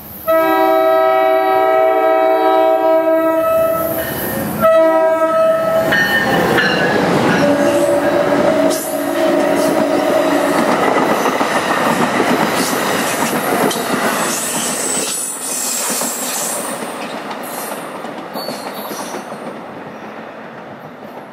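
New Jersey Transit commuter train of double-deck MultiLevel coaches sounding its horn: one long blast, then a shorter one about four and a half seconds in. Then the rumble and clatter of its wheels on the rails as it runs past, fading as it moves away.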